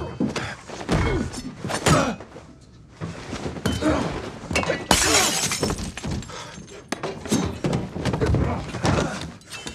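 A hand-to-hand fight: a rapid series of thuds and blows, with glass shattering and things breaking. The loudest crash comes about five seconds in.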